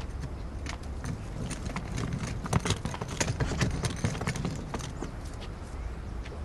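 Footsteps of people walking on a hard floor: irregular clicking steps, loudest and busiest around the middle, over a low background rumble.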